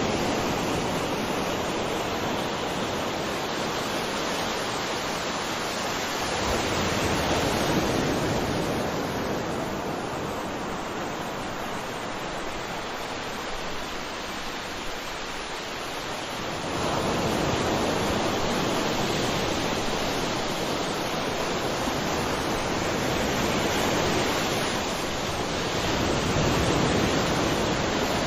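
Sea waves breaking on a shore: a continuous rush of surf that swells and ebbs slowly, with a strong surge a little past halfway through.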